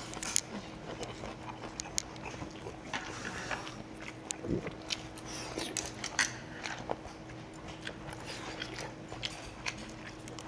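Close-up eating sounds of people chewing rabokki and gimbap, with scattered sharp clicks of metal chopsticks against bowls and plates. A faint steady hum runs underneath.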